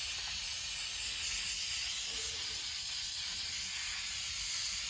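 Aerosol can of spray upholstery adhesive spraying in one steady, continuous hiss.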